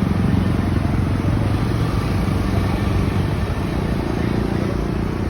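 Motor vehicle engine running steadily: a continuous low-pitched drone over road and traffic noise.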